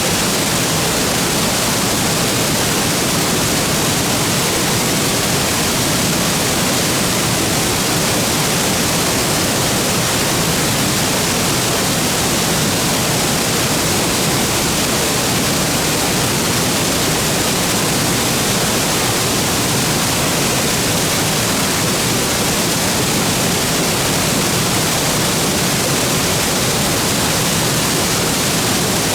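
Waterfall: water falling into a plunge pool, a steady, even rush of white water without a break.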